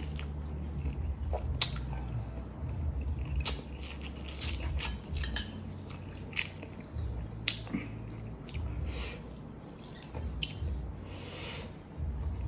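Close-miked wet chewing of chicken adobo and rice, with frequent sharp mouth clicks and smacks.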